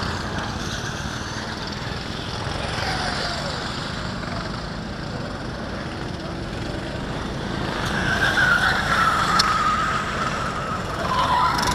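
Go-kart engines running at low speed, with one kart's engine note swelling about eight seconds in and then falling away.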